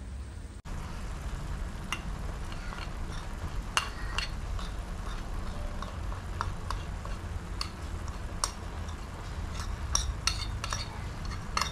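A metal spoon clinking and scraping against a plate as spices are scraped off it into a frying pan, in scattered clicks that come more often near the end, over a low steady hum.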